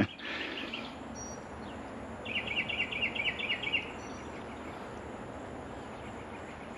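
A bird calling outdoors: a short run of quick, high chirps near the start, then a longer rapid string of them, several a second, from about two to four seconds in, over a steady background hiss of outdoor noise.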